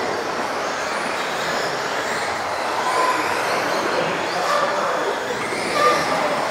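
Electric RC off-road race cars running laps on an indoor track: a steady rush of motor whine and tyre noise.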